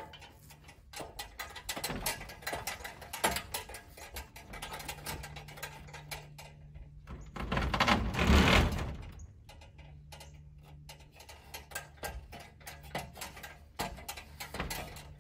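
Knocks and clanks of climbing an aluminium extension ladder and fitting a metal farm implement onto an all-thread rod against corrugated metal barn siding. A louder scraping rattle about eight seconds in, as the implement is set in place.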